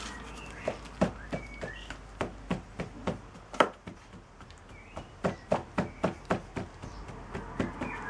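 Wooden hand rammer tamping moulding sand into a wooden moulding flask: a run of knocks, about three a second, in two spells with a short pause in the middle. Birds chirp faintly in the background.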